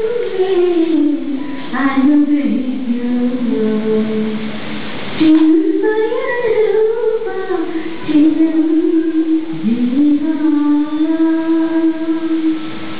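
A woman singing solo into a microphone: a slow melody with gliding phrases and long held notes, the longest near the end.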